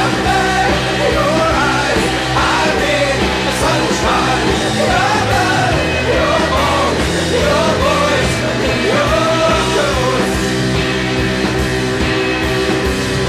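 Background music: a rock song with a singing voice over a full band.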